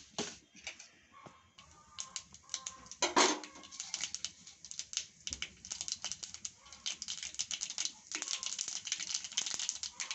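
Mustard seeds spluttering and popping in hot oil in a pan: a quick, irregular patter of sharp pops, with one louder burst about three seconds in, growing denser near the end.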